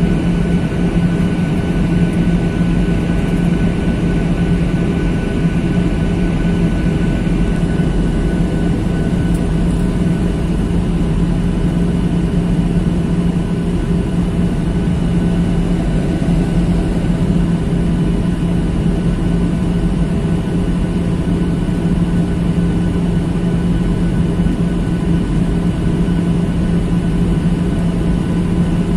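Steady cabin noise inside a jet airliner descending toward landing: the wing-mounted turbofan engines and rushing air make a constant drone, with a strong low hum and a few faint steady whining tones above it.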